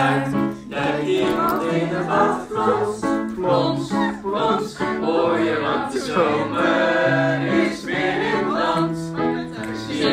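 Choral singing: several voices singing together in held notes that change pitch step by step.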